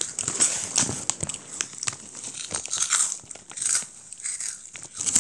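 Close-up crunching of a crispy Jagalchi snack being bitten and chewed, mixed with crinkling of its plastic snack bag, as a run of quick irregular crackles.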